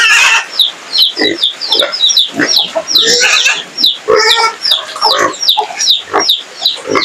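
Piglets grunting and oinking close by, in short irregular snorts, with a steady string of short, high, falling bird peeps several times a second.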